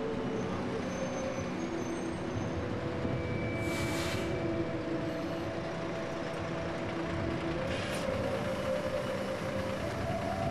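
Bus running, its engine tones shifting steadily, with a short hiss of air about four seconds in and another about eight seconds in.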